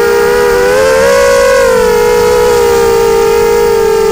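Dart 250 quadcopter's motors and propellers whining steadily in flight. The pitch rises about a second in and settles back down half a second later as the motors speed up and ease off.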